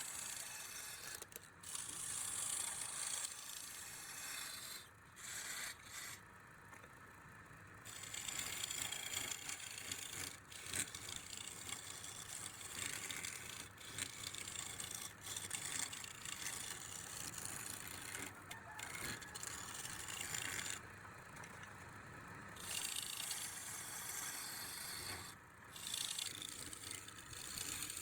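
Scraping and rubbing of a tool working wood, in uneven continuous strokes, with a couple of short pauses.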